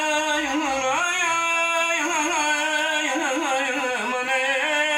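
Azerbaijani folk music between a male singer's sung lines: a saz plays an ornamented, wavering melody over steady held drone notes.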